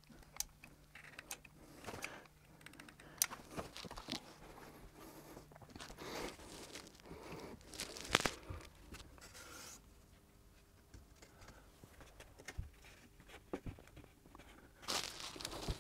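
Quiet handling noise: scattered clicks, light knocks, scrapes and rustles as a wooden batten is lifted and set upright against a wall. The sharpest click comes about eight seconds in, and there is a short cluster of rustling near the end.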